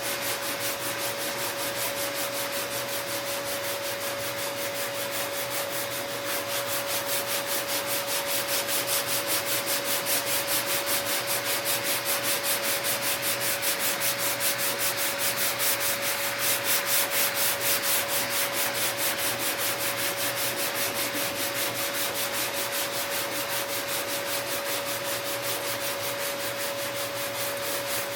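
Sanding block rubbing back and forth over body filler on a car fender's body line, in quick, even strokes, with a steady tone underneath.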